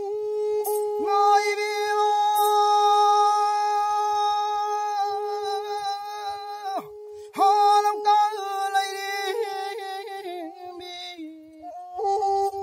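Pena, the Manipuri single-string bowed fiddle, played in long held notes with a nasal, voice-like tone. The line breaks briefly about halfway and steps down in pitch before returning near the end, and the bells on the bow jingle a couple of times early on.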